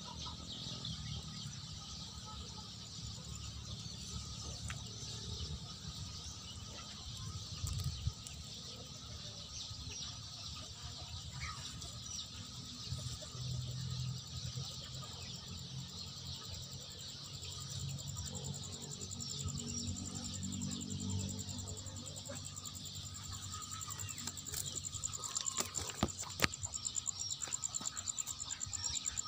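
Outdoor garden ambience: a steady high-pitched chorus of insects with occasional bird calls, over low rustling as the phone is moved through the leaves. A few sharp clicks come near the end.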